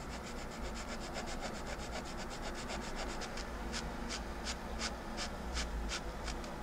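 Hand-abrading a small wooden ring with a flat file or sanding stick: rapid scratchy back-and-forth strokes, about seven a second, slowing after about three seconds to firmer, spaced strokes about three a second.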